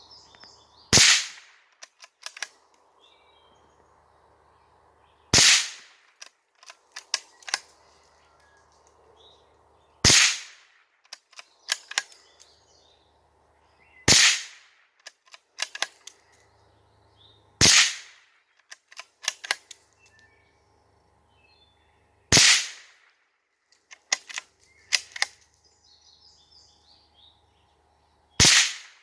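CZ 452 bolt-action .22 LR rifle firing seven single shots, several seconds apart. After each shot come quick clicks as the bolt is worked to eject the case and chamber the next round. Faint bird chirps sound between shots.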